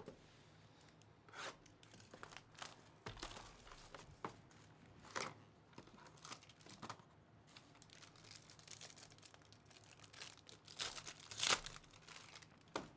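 Cardboard hobby box of 2024 Bowman Chrome baseball cards being handled and a foil card pack torn open, its wrapper crinkling; the loudest tearing comes near the end.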